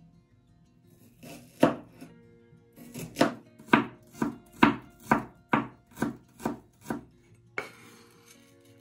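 Chef's knife chopping a red onion on a bamboo cutting board: one cut, then a steady run of about nine knife strikes on the board, roughly two a second. Near the end there is a knock and a short scrape as the chopped onion is tipped off the board.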